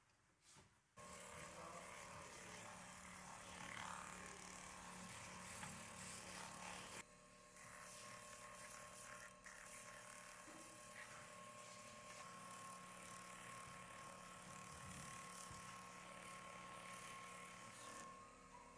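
Electric bench-mounted edge burnisher with a sanding drum, running steadily as a leather belt end's edge is held against the spinning drum to sand and burnish it. It is a faint steady motor hum that starts about a second in.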